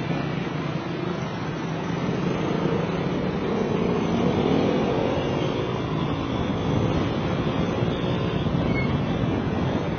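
Car driving: steady engine and road noise, growing a little louder with a slight rise in engine pitch about halfway through.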